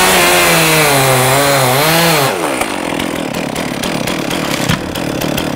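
Two-stroke chainsaw at full throttle, cutting through a dead Douglas fir, its pitch dipping slightly under load. A little over two seconds in, the engine note falls away, leaving a quieter rough noise with scattered clicks.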